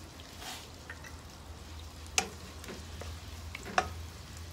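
Sliced onion frying gently in butter and a little oil in a nonstick pan, softening until translucent, with a faint sizzle. A wooden spatula knocks sharply against the pan twice, about two seconds in and near the end.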